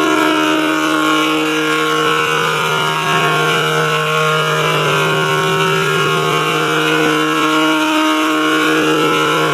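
Steady sustained tonal drone in G major, a constant low tone with layered overtones and faint slow sweeps up and down within it.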